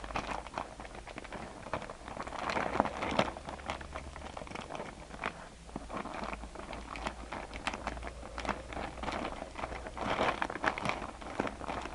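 Scissors cutting into a plastic shipping package, with the packaging crinkling and rustling in irregular snips and crackles.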